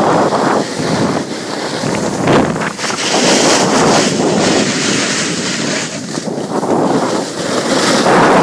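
Wind rushing over the microphone of a snowboarder riding downhill at speed, mixed with the hiss of the board's edge carving across the snow, strongest in the middle.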